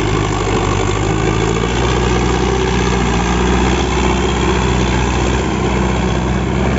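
Sonalika DI 750 III tractor's diesel engine running at a steady speed under load, towing a trailer through deep mud.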